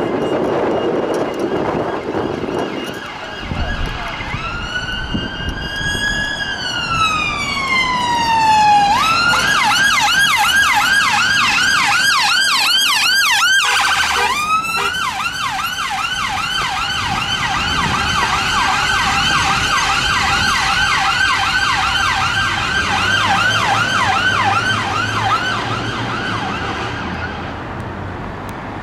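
Emergency vehicle siren from a London Fire Brigade fire investigation van on blue lights. It starts about four seconds in with a slow wail that rises and then falls, switches to a fast repeating yelp about nine seconds in, breaks off briefly around fourteen seconds, and keeps yelping until near the end. Engine noise from the passing vehicle sits underneath.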